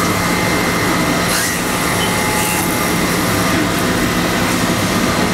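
Haas VF-3 CNC vertical machining center drilling an aluminum part under flood coolant: a steady machine noise with a low hum and a high whine, and short hisses about a second and a half and two and a half seconds in.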